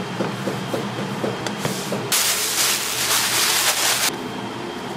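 A loud hiss in a Chinese-restaurant kitchen, starting abruptly about two seconds in and cutting off about two seconds later, over a steady low hum.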